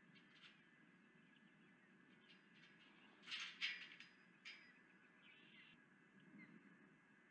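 Osprey calling: a quick run of short, high chirps a little past three seconds in, then one more about a second later, over a faint low background rumble.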